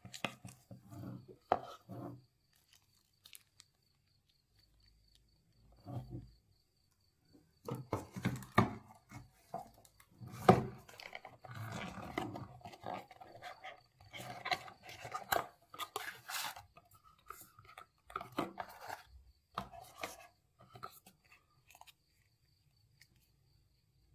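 Handling noises from unboxing a smartphone: packaging and the phone being rubbed, slid and tapped, in short bursts of rustling and clicks with quiet pauses between them.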